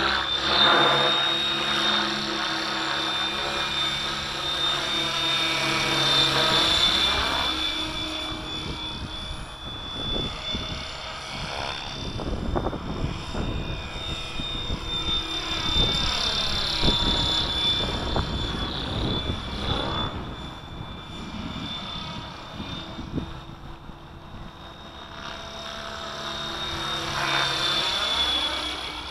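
Kasama Dune 600 radio-controlled helicopter in flight: a whirring rotor sound with a steady high whine. It swells and fades as the helicopter passes closer and farther, loudest about a second in, around six seconds, around sixteen seconds and near the end.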